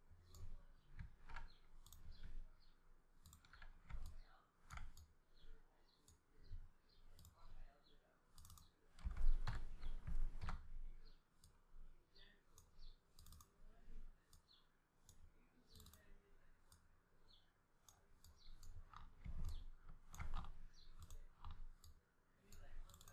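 Computer mouse and keyboard clicking irregularly as a 3D model is worked on, with a louder thump and a low rumble about nine seconds in.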